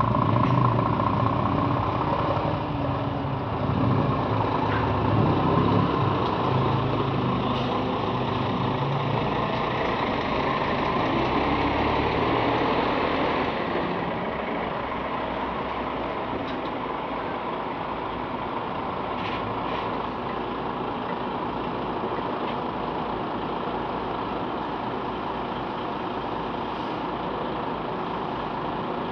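Heavy articulated trucks driving slowly past one after another, their diesel engines running. A truck passing close makes it louder for about the first dozen seconds, then it settles to a steadier, lower engine sound.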